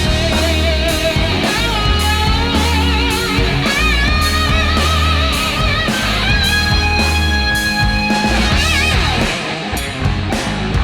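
Background rock music: distorted electric guitar over a steady drum beat and bass, with a lead guitar line that bends and holds notes.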